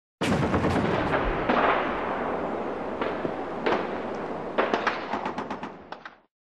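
Battle sound effect of heavy gunfire: a dense din with sharp single shots cracking through it, fading away and stopping shortly before the end.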